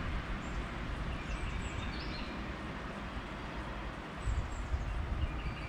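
Wind buffeting the microphone outdoors: a steady rushing noise with a gusty low rumble that swells about four seconds in.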